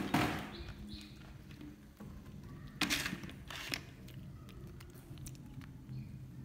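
Three short scuffs and knocks, at the start and twice about three seconds in, from a plastic food tray being handled on a plastic chair and a baby monkey clambering onto it, over a faint steady low hum.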